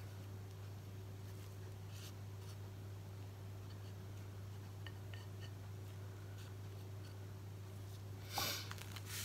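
Quiet room tone with a steady low hum and a few faint ticks, broken near the end by two short rustles, the first the louder.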